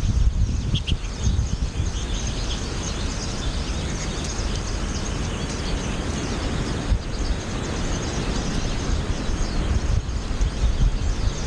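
Wind buffeting the microphone as a steady rumble, with a few faint high chirps from American goldfinches in the first couple of seconds.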